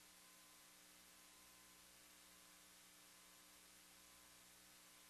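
Near silence: a faint steady electrical hum with hiss on the audio feed.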